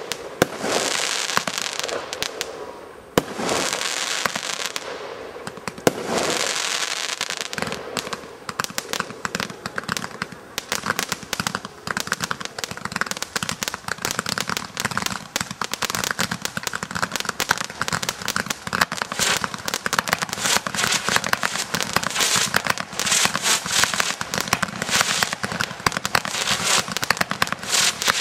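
Fireworks going off: a few separate loud bangs, each trailing into a crackling hiss, then from about eight seconds in a dense, rapid crackle of many small bangs in quick succession.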